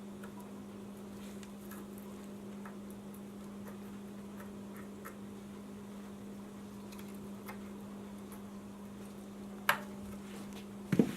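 Metal parts being handled on a secondary clutch held in a vise: faint scattered light clicks over a steady low hum, then a sharp metallic knock near the end and a quick double knock just after it.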